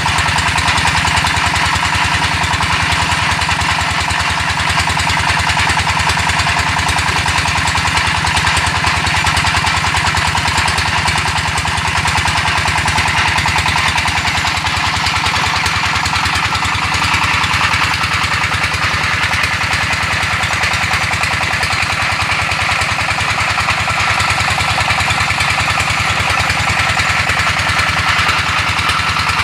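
Brick-making machine running steadily, with a fast, even rattling vibration that does not let up.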